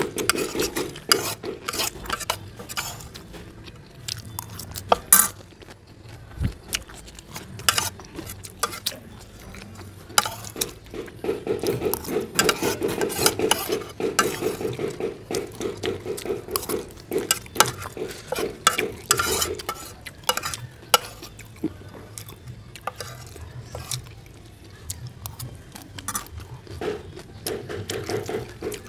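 Metal spoon scraping and clinking against a plate, again and again at an uneven pace, as the last grains of fried rice are gathered up from a nearly empty plate.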